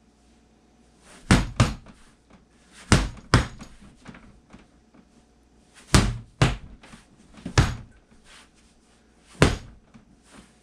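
Baseball bat striking a free-standing torso training dummy: about eight sharp hits, several in quick pairs.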